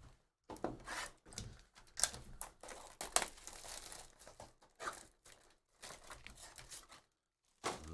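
Clear plastic shrink-wrap crinkling and tearing in irregular crackles as a sealed trading-card hobby box is unwrapped and its lid flap pulled open.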